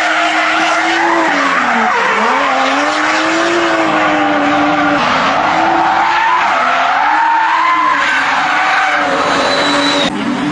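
A car drifting: the engine revving up and down while the tyres squeal, with a wavering pitch that dips and recovers several times before cutting off suddenly near the end.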